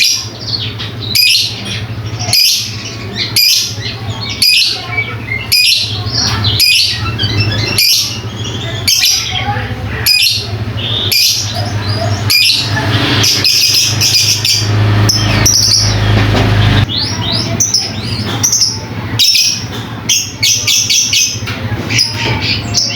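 Lovebird chattering: quick runs of short, high chirping calls, broken by brief gaps about once a second, over a steady low hum.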